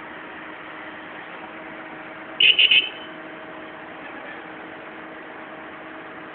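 A steady engine hum under a hiss, broken about two and a half seconds in by three short, loud high-pitched tones in quick succession, like signal beeps.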